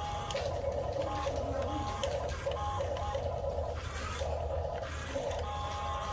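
Small electric gear motors of a toy RC excavator whirring in short stop-start bursts over a steady low hum. A steady higher tone joins near the end.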